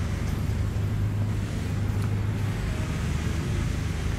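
A steady deep rumble with a faint even hiss over it.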